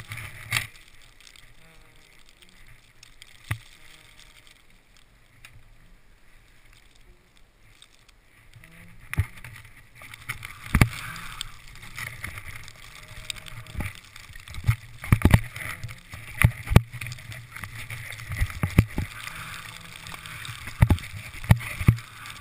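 Skis sliding through deep snow, with frequent sharp knocks and thumps of the jostled camera. Fairly quiet apart from a few knocks for the first eight seconds or so, then the skiing noise starts and runs on.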